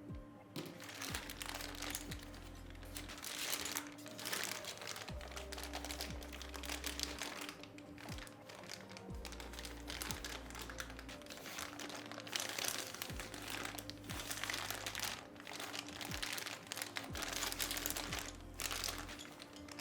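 Packaging crinkling and rustling in repeated bursts as a set of keycaps is unboxed, over background music.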